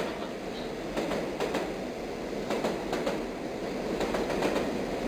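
A train sound effect played back from a WAV file: a steady running-train noise with irregular sharp clicks through it.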